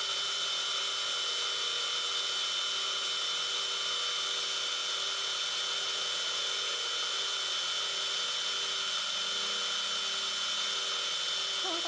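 Mini-lathe running steadily with a constant high whine while the lathe tool takes a facing cut across the end of a steel workpiece.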